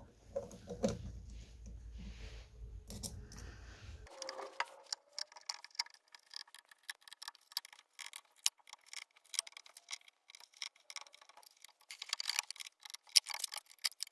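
Small screws being undone with a hand screwdriver from an aluminium shield plate: a run of light metallic clicks and ticks. A low rumble runs under the first four seconds.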